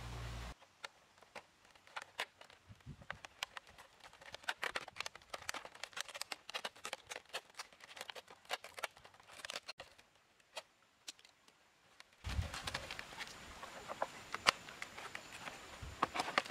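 Thin plastic water bottles and a roll of packing tape being handled: many scattered small crinkles and clicks of plastic. A steady background hiss comes in about three-quarters of the way through.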